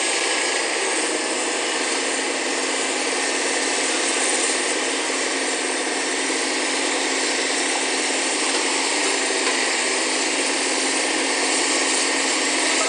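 Hitachi hydraulic excavator's diesel engine running steadily as the machine digs with its bucket, a constant drone with no breaks.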